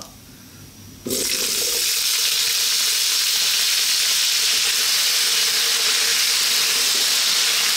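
Raw potato cubes hitting hot sunflower oil, setting off a sudden loud sizzle about a second in that then holds steady as they fry.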